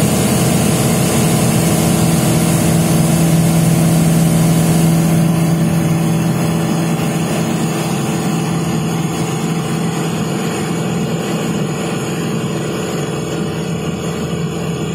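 Light aircraft's engine and propeller droning steadily, heard inside the cockpit, with the hum and hiss easing slightly about five seconds in.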